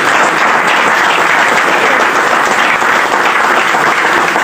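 Loud, steady applause from a crowd clapping their hands.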